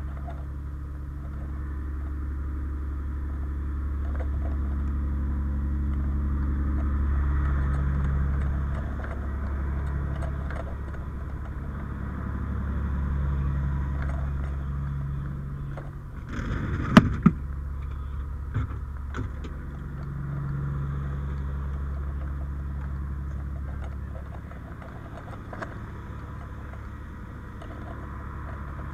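Fire ladder truck's diesel engine running as the truck moves slowly, its pitch rising and falling with the throttle. A little past halfway there is one sharp, loud clatter with a brief hiss.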